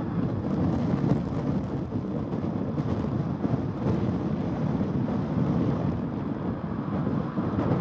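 Steady low engine noise of a twin-engine jet airliner rolling down the runway away from the microphone, mixed with wind buffeting the microphone.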